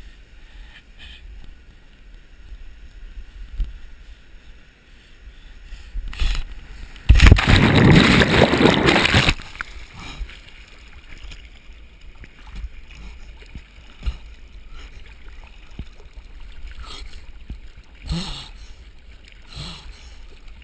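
A person jumping into a pool of water with the camera: about seven seconds in, a loud splash and churning of water lasting about two seconds as the camera plunges in, followed by quieter splashing and lapping while swimming at the surface.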